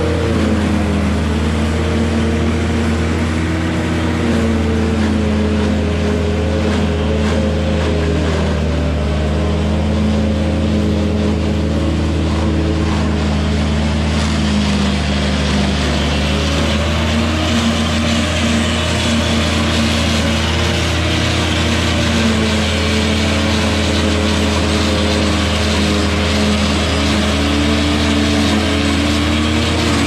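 Engine-driven Lebanon 718 silage processor running steadily while it chops standing corn and blows the silage up its spout: a constant low engine drone with a rough churning noise on top.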